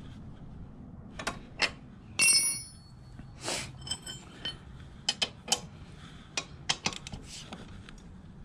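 Steel hand tools clinking irregularly: a socket wrench and sockets knocking on the rear axle adjuster bolts and being picked up and set down. One clink rings briefly about two seconds in.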